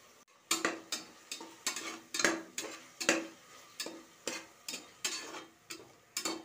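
A spoon scraping and knocking against the bottom of an aluminium pressure cooker, about three strokes a second, as peas and green chillies are stirred into frying masala.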